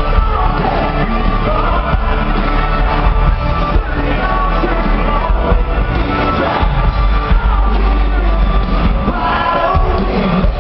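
Live band with guitars, drums and a lead singer performing a song, heard from among the concert audience.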